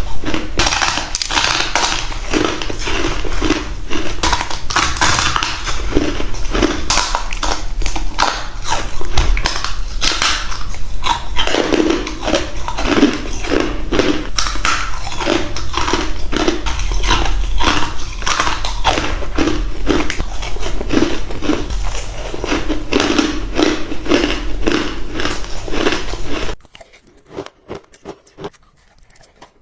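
Ice being bitten and crunched in the mouth, a dense run of crisp crunches and cracks that drops suddenly to a few faint crunches near the end.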